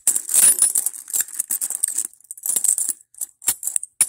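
A heap of loose metal coins, copper and silver-coloured, clinking and jingling as a hand digs through them in a wooden box. The clinks come in bursts with short breaks, and a louder clink sounds near the end.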